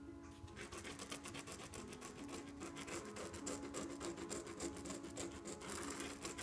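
Rapid, repeated scrubbing strokes of a tool on a painted canvas as paint is worked in. It starts about half a second in and stops near the end.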